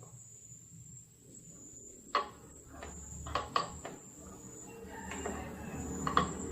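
A few sharp clicks and knocks of hard parts being handled while a scooter's windshield mounting is taken off, about two seconds in, twice near three and a half seconds and once near the end. A faint steady high whine runs underneath, and a low rumble builds near the end.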